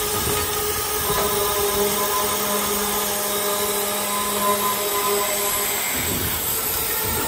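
Automatic high-speed circular cold saw running with a steady multi-tone whine while it cuts off thick-wall metal tube. A few short low surges near the start and again near the end come from the machine's clamping and feed cycle.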